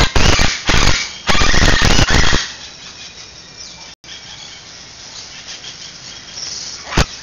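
Chestnut-fronted macaws giving loud, harsh screeches: three calls in the first two and a half seconds, the last the longest. A single sharp click near the end.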